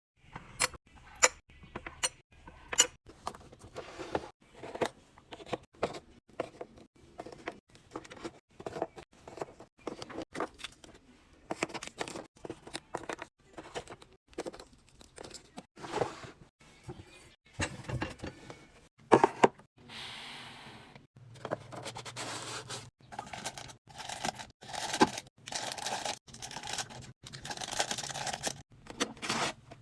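Food packaging and containers being handled during a restock: a few sharp clicks at the start, then a long run of short rustles, scrapes and knocks, with a couple of louder knocks a little past the middle and dense crinkling of wrappers toward the end.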